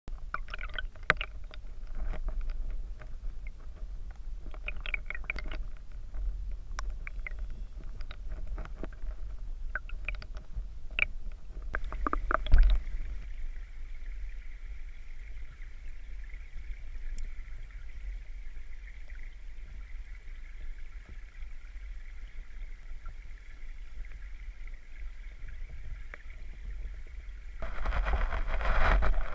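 Creek water flowing, heard through an underwater camera's housing: a steady low rumble with scattered clicks and knocks, a sharp knock about twelve seconds in, and a louder rush of water near the end.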